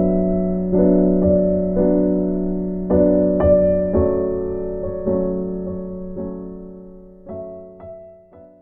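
Background piano music: slow chords struck about once a second over a held low note, growing quieter and fading out near the end.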